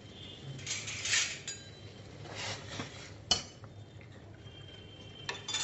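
Metal spoon stirring banana pieces in water in a steel pot. It scrapes in a few short strokes, with one sharp clink against the pot a little past halfway.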